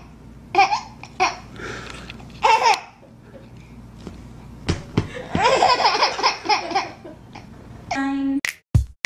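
A baby laughing in bursts of giggles and belly laughs. Near the end, electronic music with a steady drum beat cuts in.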